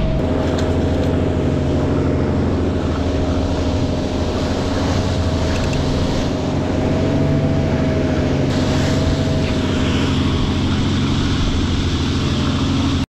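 Motorboat engine running steadily at trolling speed, with a steady whine and the rushing wash of the wake and wind over it.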